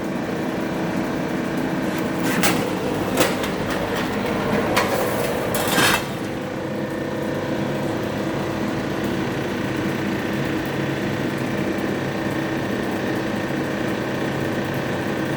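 Chain-driven ten-station roll former running steadily. Between about two and six seconds in, a strip of 24-gauge sheet metal goes through the rolls, and there are several sharp metallic clanks and a rattling scrape. The machine then runs on with a steady hum.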